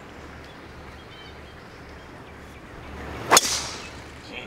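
Golf driver swung into a teed ball: a short rising swoosh of the swing ending in one sharp crack of impact a little over three seconds in.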